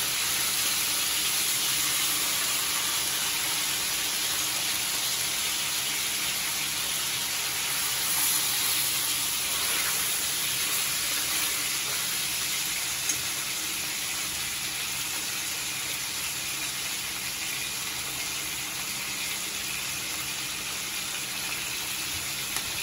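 Tanigue (Spanish mackerel) steaks frying in butter with garlic, a steady sizzle, with a second pan of ground meat and onion sautéing alongside. The sizzle eases a little in the second half.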